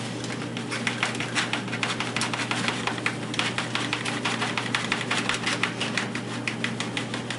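Rapid, irregular light clicking and crinkling as shredded cheese is shaken out of its plastic bag and measured into a cup. A steady low hum lies underneath.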